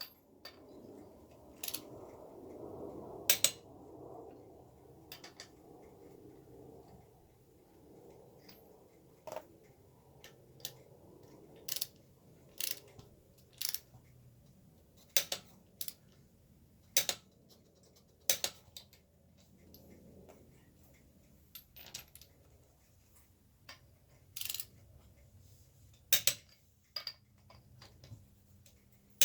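Hand tools and metal brake parts clicking and clinking sharply at irregular intervals, roughly one every second or two.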